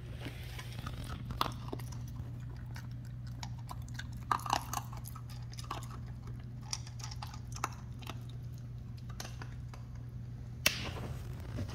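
A puppy crunching dry kibble from its food bowl in irregular small crunches and clicks, with a single sharp knock near the end.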